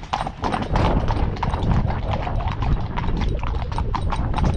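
Hooves of several horses clip-clopping on a tarmac road: a quick, uneven run of hoof strikes.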